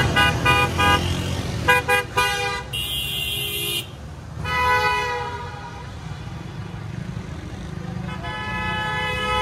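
Vehicle horns honking in a convoy moving through busy street traffic: a quick run of short toots at the start, then more honks, with two longer blasts later on. Underneath is the steady low rumble of engines.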